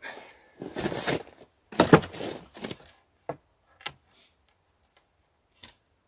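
Rough-sawn ash boards being shifted on wooden sawhorses: two scraping, rubbing stretches in the first three seconds, the louder one about two seconds in, then a few sharp wooden knocks.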